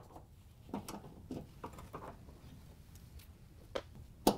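Phillips screwdriver backing out a mounting screw from a range terminal block's metal bracket: a few faint, irregular clicks and ticks as the screw turns, then one sharp click near the end.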